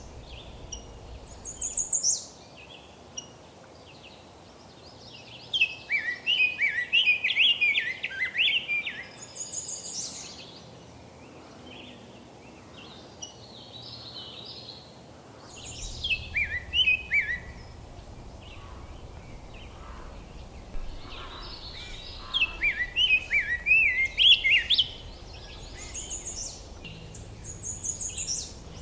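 Songbirds singing: a jumbled, warbled song repeated in long phrases three or four times, with short high-pitched notes from another bird.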